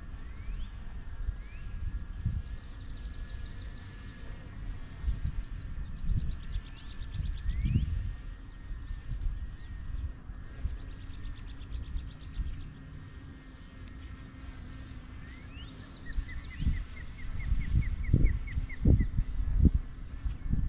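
Wild birds calling: short rising chirps and fast trills, then a run of about a dozen even, short notes a little before the end. Uneven low rumbles and thumps sit underneath and grow stronger near the end.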